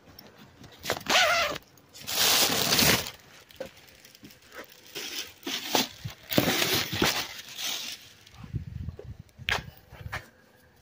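Crinkling and rustling of a food delivery bag in several bursts as the order is handled and set down, with a few sharp clicks and low thumps near the end.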